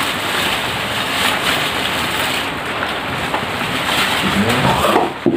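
Clear plastic packaging bag crinkling and rustling as it is handled and pulled off a wall-fan part by hand.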